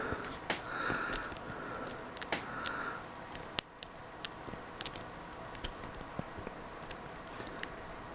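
Light, irregular metallic clicks and scrapes of a lock pick and tension wrench working the pin tumblers of a Master Lock No. 3 padlock, with one sharper click about three and a half seconds in.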